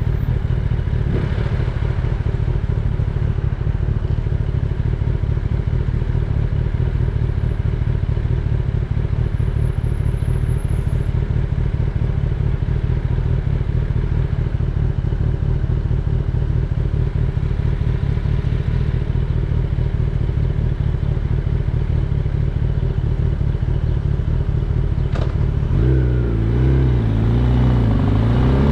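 Kawasaki Ninja ZX-10R's inline-four engine running steadily under way; near the end the engine note changes and starts to rise as it revs up.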